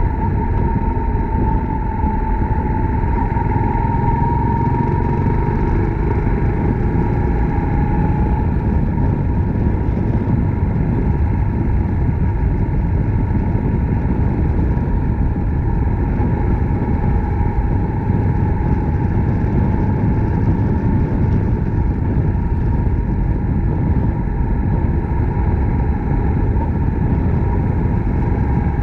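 Suzuki Grasstracker Big Boy single-cylinder motorcycle running steadily under way, its engine note with a dense rush of low road and wind noise and a held tone near 1 kHz that drifts slightly in pitch.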